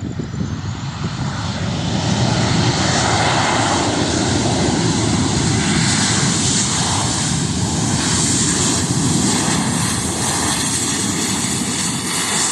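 Airliner passing low overhead near the runway, its engine roar swelling over the first two seconds and then holding loud and steady, with a thin engine whine above it.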